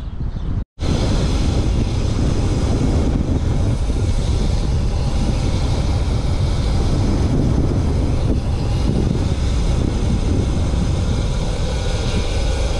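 Steady, loud wind rumble on the camera microphone while riding a road bike at speed, starting abruptly about a second in.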